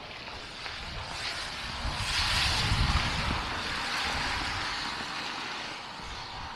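A vehicle passing on the street: a rush of tyre and engine noise that swells about two seconds in and fades away over the next few seconds.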